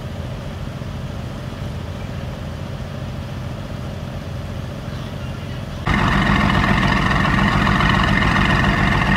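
Tuned Mercedes-AMG GT S twin-turbo V8 idling steadily through an aftermarket Per4mance exhaust. About six seconds in it suddenly becomes much louder, heard close to the tailpipes, and still holds a steady idle without revs.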